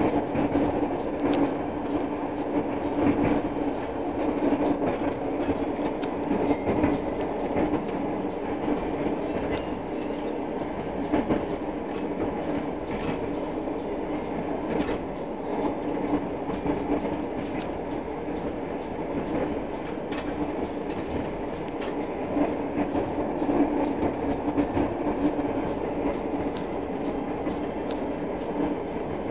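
Long-distance passenger train running at speed across a steel truss bridge, heard from inside the carriage: a steady rumble of wheels on rail with a constant low hum and scattered sharp clicks.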